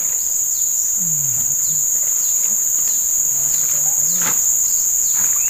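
Steady, high-pitched drone of an insect chorus, unbroken, with a fainter, higher hiss layered above it.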